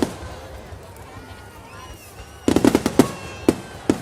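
Aerial fireworks bursting: a bang at the start, a rapid volley of sharp cracks about two and a half seconds in, then two more single bangs.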